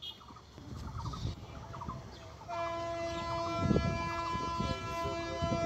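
Diesel locomotive horn sounding one long, steady blast of about four seconds, starting about two and a half seconds in, over the low rumble and thumps of the train running through the station.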